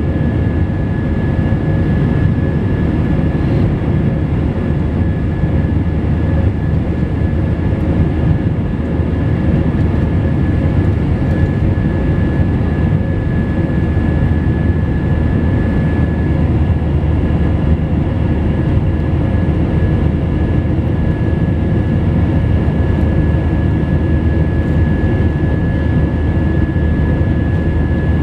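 Airbus A319 jet engines running steadily, heard from a window seat inside the cabin: a low rumble with a steady whine over it.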